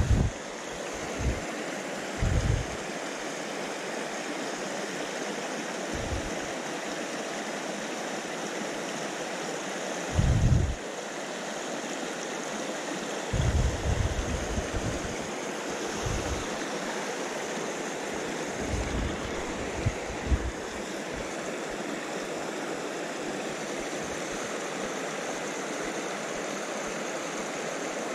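Small moorland stream running over rocks: a steady hiss of rushing water, broken by several short low bumps on the microphone, the loudest about ten and thirteen seconds in.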